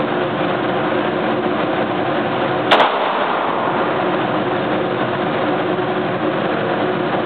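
A single semi-automatic pistol shot about three seconds in, sharp and sudden. It sounds over a steady, loud droning hum.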